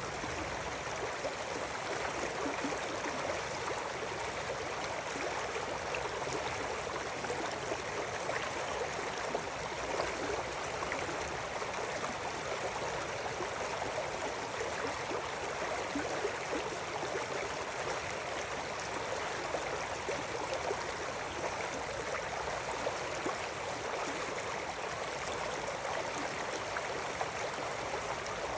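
River water flowing and babbling over stones, a steady rushing with small splashes and gurgles.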